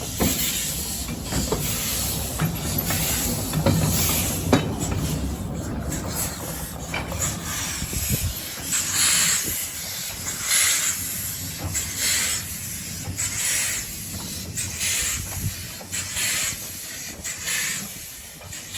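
Miniature-railway steam locomotive at work: a low rumble for the first several seconds, then steady beats of hissing exhaust about once a second.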